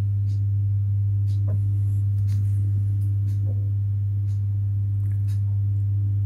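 Steady, low sine test tone at about 100 Hz: the signal feeding the CRT's deflection, 100 Hz on one channel and 100.5 Hz on the other. Faint ticks come about once a second.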